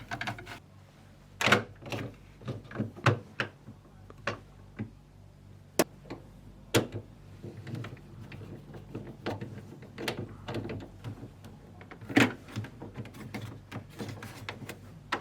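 Irregular clicks, taps and light knocks of hand work on a fridge's plastic thermostat housing as its long fixing screw is driven back in with a Phillips screwdriver.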